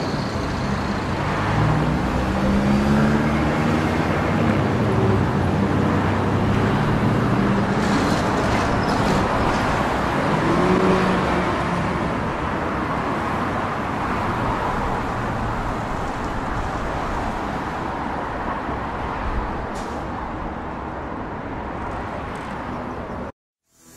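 Road traffic: vehicle engines running past over a steady noise of passing traffic, their pitch rising and falling in the first half. The sound cuts off abruptly just before the end.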